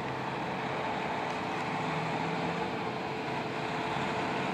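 Heavy tanker truck's engine running as it approaches slowly, a steady hum growing gradually louder.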